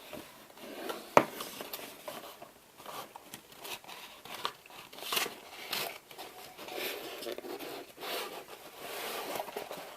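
A cardboard mail-order box being opened by hand: irregular crinkling, rustling and tearing of the box and its paper packaging, with one sharp snap about a second in.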